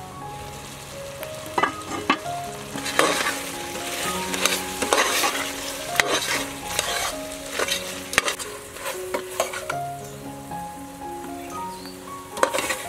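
Metal ladle stirring thick, sizzling braised meat in an aluminium pot, with repeated scrapes and clicks of the ladle against the pot; a clatter of the ladle near the end. Soft background music throughout.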